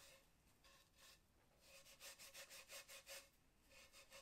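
Damp abrasive sponge rubbing back and forth on the edge of a plaster mold, smoothing off sharp edges. Faint, quick, even scrubbing strokes come in short spells, with brief pauses near the start.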